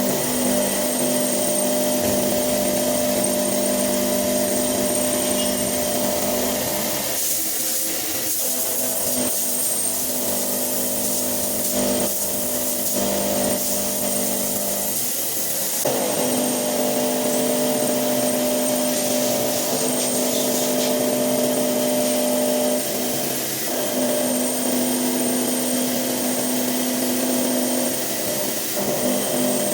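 Hitachi Seiki VM50 CNC vertical mill cutting a steel mold with a 35 mm cutter at about 1000 rpm: a continuous machining drone with steady tones. The tones fade for several seconds about seven seconds in and come back about sixteen seconds in.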